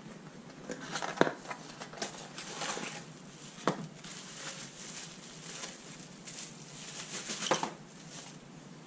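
Plastic packaging bag rustling and crinkling as it is handled and pulled from a cardboard box, with a few sharp taps and clicks of the box and parts set down on a hard appliance top.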